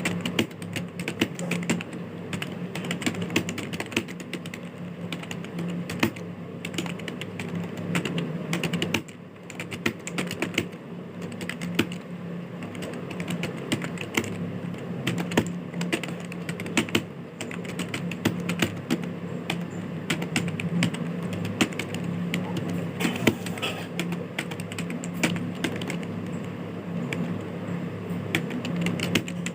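Computer keyboard being typed on fast and continuously for a Hindi typing test, a dense run of key clicks with a short break about nine seconds in. A steady low hum runs underneath.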